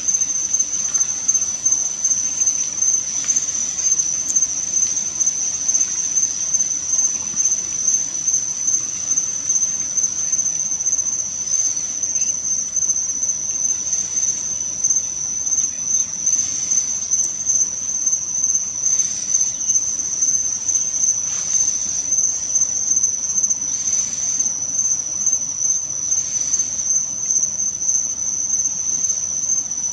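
Crickets chirping: a steady high-pitched trill with a regular pulse.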